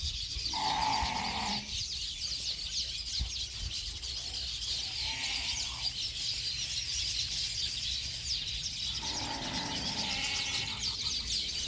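A flock of chickens: constant high-pitched cheeping with three longer, drawn-out calls from a hen, the first about half a second in, one in the middle and one near the end.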